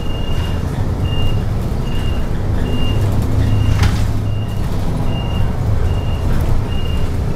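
A city bus's engine drones low beneath a short, high electronic beep that repeats about once every 0.8 seconds. The drone swells a little about three to four seconds in.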